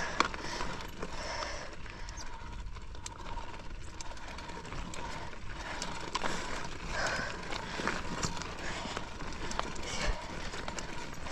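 Mountain bike climbing a rough trail: irregular clicks and ticks from the drivetrain and tyres over rocky ground, over steady trail noise.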